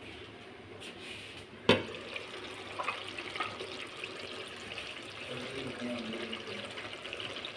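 A steel pot lid clanks once, sharply, about two seconds in as it is lifted off, followed by a steady sizzling and bubbling of potatoes and fenugreek cooking in the steel pot on a gas burner, with a few small ticks.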